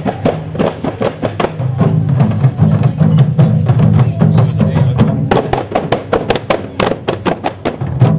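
Music of rapid, dense drumbeats, many strikes a second, over a steady low hum.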